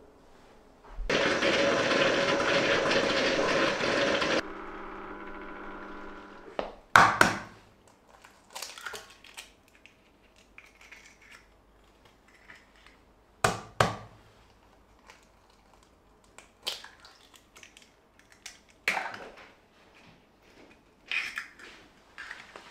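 A small electric kitchen appliance motor, blender- or grinder-like, runs loudly for about three seconds, then spins down with a fading hum. After it, scattered sharp knocks and clicks of kitchenware being handled.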